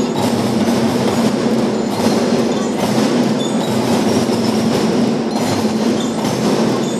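Children's marching drum band playing: many snare and tenor drums with bass drums beating a steady, dense rhythm.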